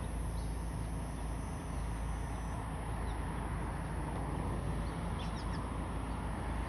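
A steady low outdoor rumble with a few faint, short bird chirps, a small cluster of them about five seconds in.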